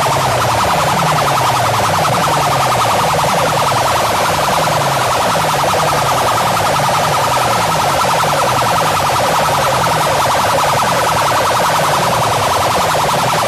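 Very loud electronic siren effect played through an array of horn loudspeakers on a DJ sound system. A low tone falls again and again, about one and a half times a second, under a harsh, fast-pulsing buzz that never lets up.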